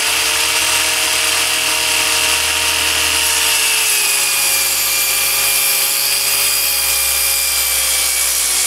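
PRIMERO electric circular saw cutting through a wooden board: a loud, steady motor and blade whine over the noise of the blade in the wood. The pitch drops slightly about four seconds in. The saw is noisy for its type.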